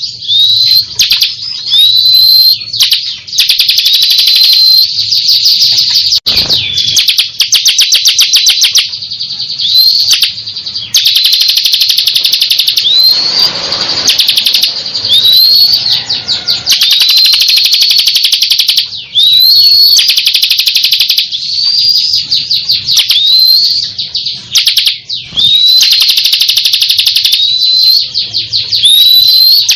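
Ciblek kristal (prinia) singing loudly and almost without pause. Rapid rattling trills alternate with repeated short upswept whistled notes.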